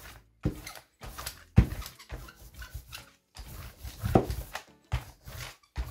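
Hand brayer rolled back and forth over wet acrylic paint on a paper journal page, spreading the paint in a series of separate strokes with short pauses between them.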